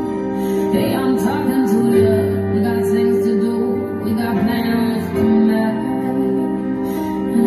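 Slow, gentle music with long held notes and a female voice singing.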